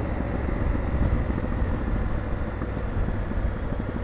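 Motorcycle engine running at low speed, with a steady low rumble of wind and road noise on the bike-mounted camera's microphone.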